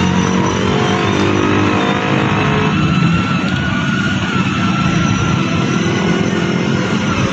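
Toy car running: a steady motor whine over engine-like noise, with the pitch sliding down in the first few seconds.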